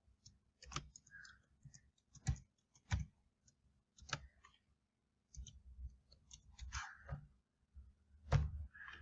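Faint, irregular taps of computer keyboard keys as a password is typed, followed by a louder click near the end: the mouse clicking the Login button.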